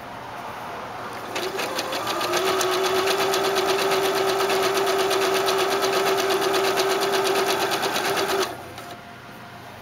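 Janome 3160 sewing machine sewing a blind hem stitch: it starts about a second in, picks up speed, runs steadily with rapid even needle strokes over a hum, and stops suddenly near the end.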